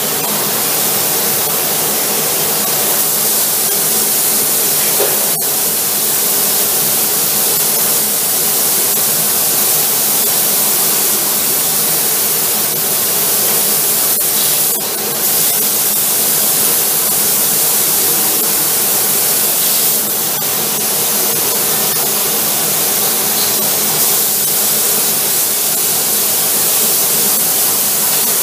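Paint spray gun on a painting robot's arm hissing steadily as it sprays in a paint booth, over a faint steady hum, with a brief break about halfway through.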